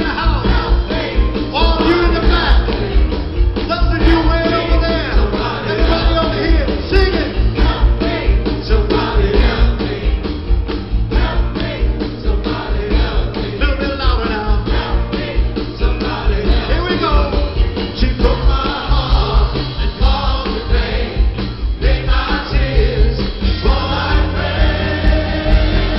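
Live vocal group singing with an amplified backing band: lead and harmony voices over drums and bass keeping a steady beat.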